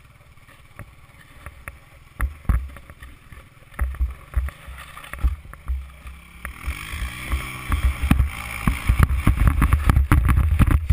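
ATV engine pulling a sled across snow by a tow strap: bumps and knocks of the towed sled over the snow and wind thumping on the microphone, then about two-thirds of the way in the engine revs up, rising in pitch and getting louder along with a hiss of snow as the tow speeds up.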